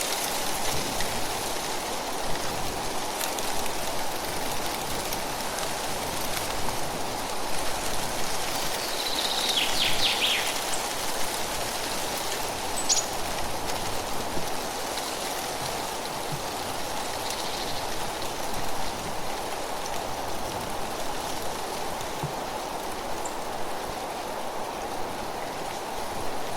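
Wind blowing through tree leaves: a gentle breeze making a steady rustle. A brief cluster of high chirps sounds about ten seconds in.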